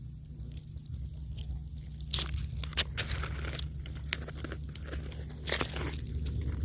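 Close-up crackling and crunching of ants at work, a dense run of tiny ticks and scrapes with a few sharper clicks about two, three and five and a half seconds in, over a steady low hum.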